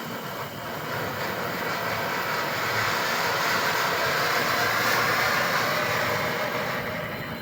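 Non-exploding firework burning with a steady hissing rush that swells over the first few seconds and eases off near the end, with no bangs.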